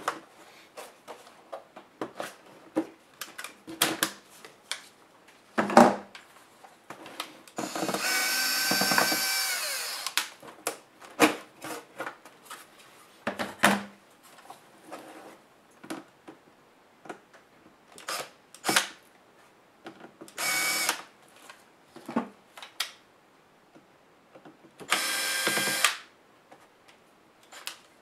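A small electric screwdriver whirs in three bursts, the first about two seconds long and the others under a second, backing screws out of a laptop's plastic bottom case. Scattered clicks and knocks of the laptop being turned over and handled on the desk fall between the bursts.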